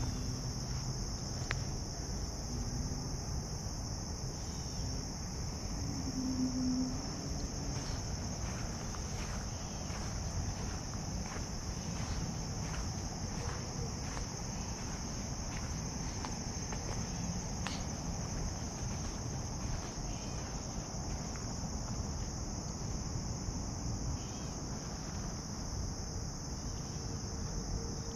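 Steady high-pitched insect chorus, with footsteps on a dirt path about once a second and a low rumble underneath.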